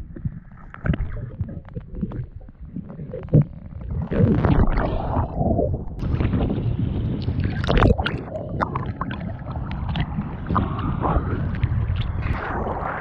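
Sea water heard through an underwater action camera: muffled gurgling with scattered knocks and clicks, then from about six seconds in the sound opens out into open-air waves lapping and splashing at the surface, with wind on the microphone.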